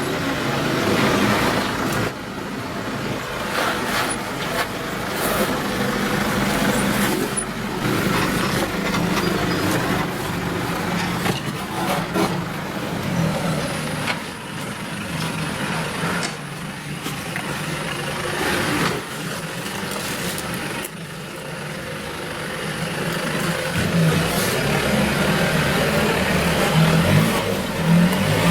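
A 4x4's engine running at low revs, its level rising and falling, with a few sharp knocks and clunks along the way.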